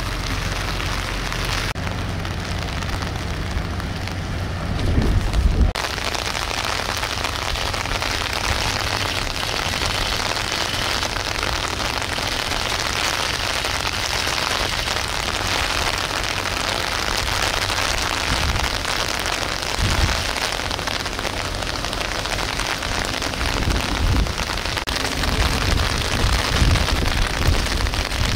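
Steady rain falling, a dense even hiss, with irregular low rumbles of wind buffeting the microphone.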